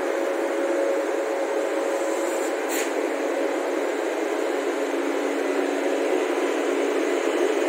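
WAP-7 electric locomotive running slowly past close by: a steady electric hum with a few held notes over a rushing noise from its blowers and running gear, with one brief click about a third of the way in.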